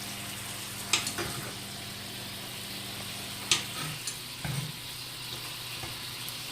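Chicken juices and vegetable cooking liquid sizzling in a frying pan, reducing into a pan sauce, with a few sharp clicks of a utensil against the pan about one, three and a half and four and a half seconds in.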